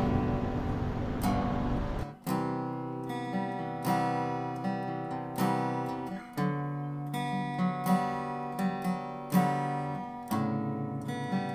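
Background music: a strummed acoustic guitar playing a series of chords. A steady rushing noise lies under it for the first two seconds, then drops away.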